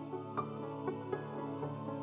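Soft instrumental background music: sustained tones with gentle notes struck roughly twice a second.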